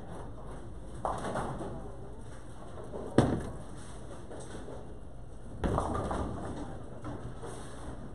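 Bowling alley: a bowling ball lands on the lane with a sharp thud about three seconds in as it is released. A clatter of pins being struck follows a couple of seconds later, over the alley's steady background din.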